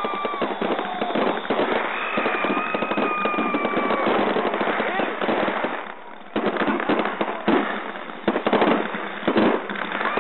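Backyard consumer fireworks crackling and popping in a dense, continuous volley. A steady whistle sounds for about two seconds, a short lull follows, and then several sharper bangs come near the end.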